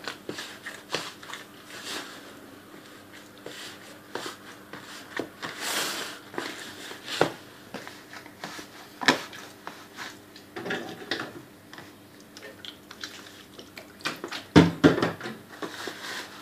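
Hands mixing flour and water into roti dough: soft rubbing and scraping with scattered light taps at irregular intervals.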